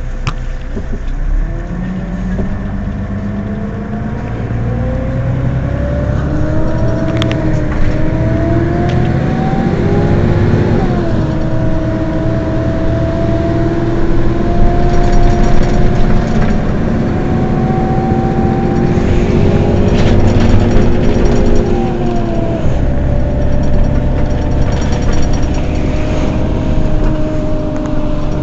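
Mercedes-Benz Citaro city bus idling at a stop, a steady low engine rumble under a whine that climbs slowly in pitch for several seconds, drops sharply about ten seconds in, climbs again and drops back about twenty-two seconds in.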